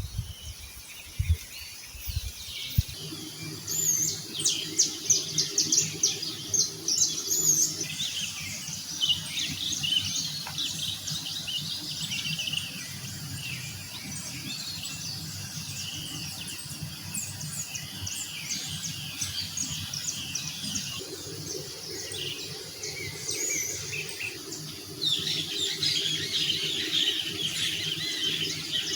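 Several birds chirping and singing, many short high calls and trills overlapping, busiest from about four to eight seconds in and again near the end. A steady low hum runs underneath, starting about three seconds in.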